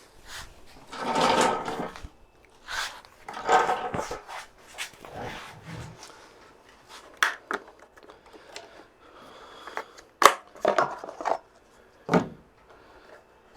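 Parts of a small gasoline generator being handled as it is taken apart: two stretches of rustling and scraping, then several sharp clicks and knocks, the loudest about ten seconds in.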